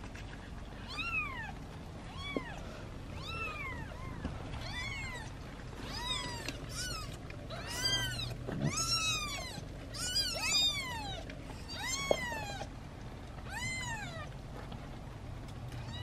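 Newborn British shorthair kittens mewing over and over, high thin cries that rise and fall in pitch. The mews come thickest in the middle, with two or more kittens crying at once.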